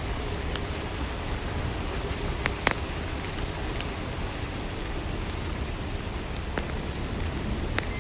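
Steady rain hiss with the sharp, scattered pops of a crackling wood fire, and a faint high-pitched chirping that comes and goes.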